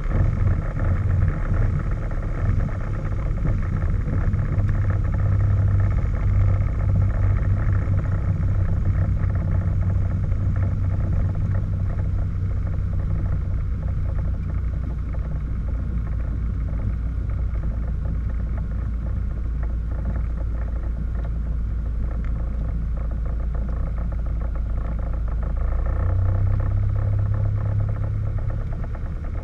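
Light aircraft's piston engine and propeller droning steadily at low taxi power, heard inside the cabin. The engine note drops about twelve seconds in and rises again a few seconds before the end.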